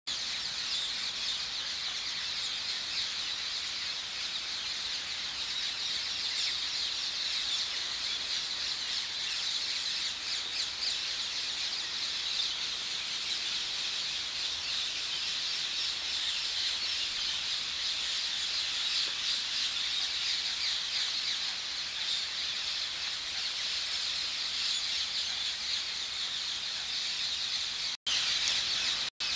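A flock of several hundred rose-ringed parakeets calling at once: a dense, unbroken chorus of high-pitched, overlapping screeches. The sound cuts out briefly twice near the end.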